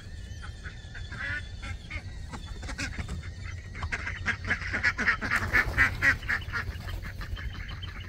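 Domestic ducks quacking in a quick run of short, repeated calls as they hurry out of their coop. The quacking grows louder about halfway through.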